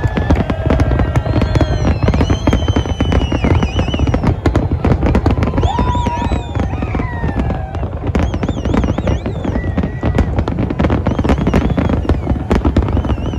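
Fireworks display going off: a dense, continuous run of bangs and crackles, with several high whistles gliding and warbling in pitch over them.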